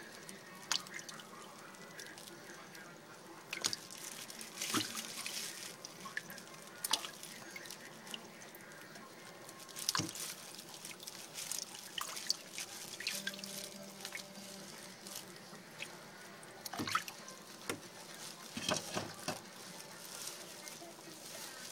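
Water splashing and dripping in a plastic tub as hands rub a roasted poblano pepper under the water to slough off its charred skin. Irregular small splashes and drips come every second or so.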